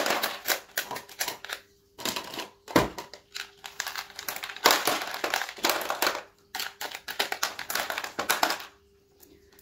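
Crackling and crinkling of a thin, flexible clear plastic orchid pot being gripped and tilted while tweezers pick chunks of bark substrate from the base of the stem, in bursts with short pauses. There is one dull knock about three seconds in.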